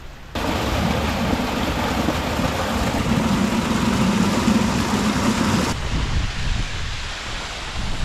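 Water rushing and splashing over rocks in a small stream waterfall, heard close up; it begins abruptly and cuts off suddenly about six seconds in, giving way to a quieter low rumble of wind on the microphone.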